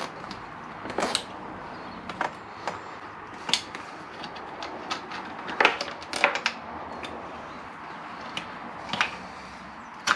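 Scattered clicks, taps and light knocks at irregular intervals as hands work a rubber clutch hose and its hooked metal bracket out through a motorcycle's frame, the hooks catching on cables.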